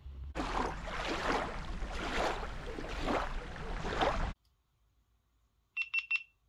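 Small waves lapping at a lakeshore, a rushing sound that swells about once a second and then cuts off abruptly. Near the end a GoPro Hero8 camera gives three quick high beeps as it is switched on.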